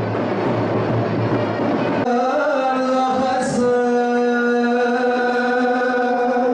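Drum-led festival music, cut off about two seconds in by a man's chanted call through a microphone and loudspeakers: one long note held nearly steady for about four seconds, in the style of a cazgır, the announcer at Turkish wrestling.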